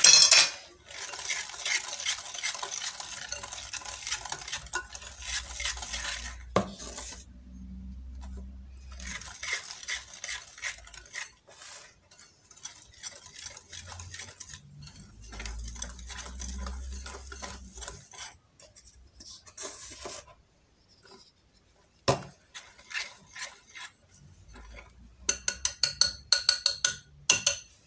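Metal wire whisk stirring flour into an oily egg-and-sugar batter in a bowl: quick scratchy strokes and clicks of the wires against the bowl, in stretches with short pauses. Near the end comes a quick run of sharp taps.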